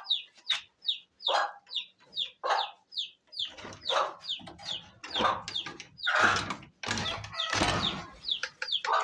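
Young chicks peeping: a steady run of short, high, falling chirps, two or three a second, with louder scuffling noises through the middle.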